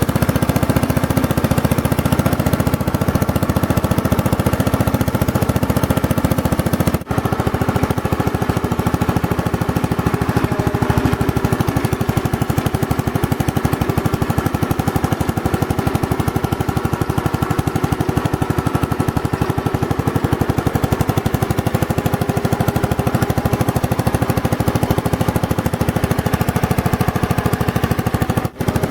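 Magna Trac Deluxe tractor's 9 hp Briggs & Stratton 23D single-cylinder engine running steadily, with two momentary drops in level, about seven seconds in and just before the end.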